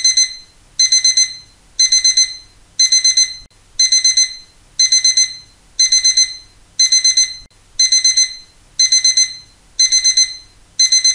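Digital alarm-clock beeping: groups of four quick, high beeps repeating about once a second, signalling that the countdown has reached zero.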